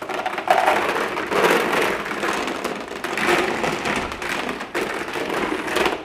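Five pounds of mini gummy bears poured from a plastic bag onto the plastic tops of robot vacuums and a hardwood floor: a steady shower of many small hits that stops near the end.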